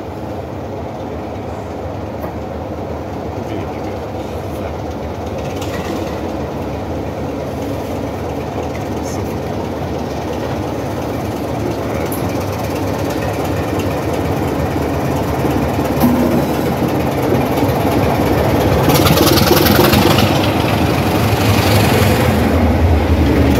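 British Rail Class 26 diesel locomotive D5314 drawing in past the platform, its Sulzer six-cylinder diesel engine running. The sound grows steadily louder as the locomotive approaches and is loudest near the end as it passes close by.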